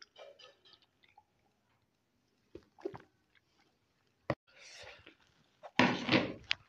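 Mouth sounds of a person eating and drinking: soft intermittent chewing and swallowing, a sharp click about four seconds in, and a loud noisy burst near the end.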